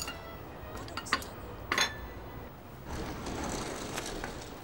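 Light clinks of bowls and chopsticks at a dining table, two sharp ones about a second apart, followed by a steady low hiss from a little past halfway.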